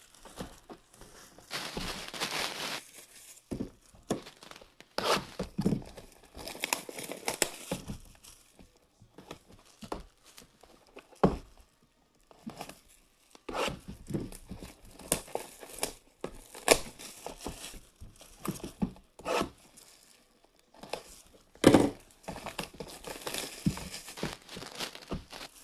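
Plastic shrink wrap on cardboard trading-card boxes being slit with a folding knife, torn and crumpled, crinkling in irregular bursts. Cardboard boxes are handled and set down, giving a few sharp knocks.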